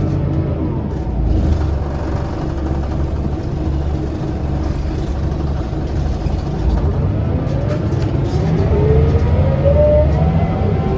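2003 Scania L94UB bus's diesel engine and drivetrain running under way, heard inside the passenger cabin with a steady low rumble. About seven seconds in, a whine climbs in pitch as the bus accelerates.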